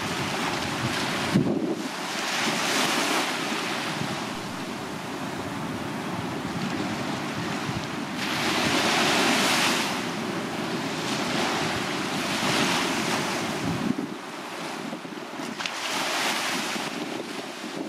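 Small sea waves breaking and washing up onto a sandy beach, swelling every few seconds, with the biggest wash about eight to ten seconds in. Wind rumbles on the microphone underneath, dropping away near the end.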